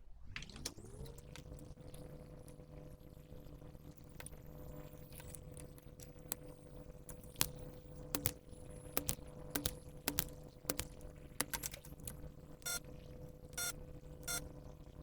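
A small electric motor in a desoldering tool spinning up at the start and then running steadily with a hum. Scattered light clicks and taps run over it, with a quick run of short rattling clicks near the end.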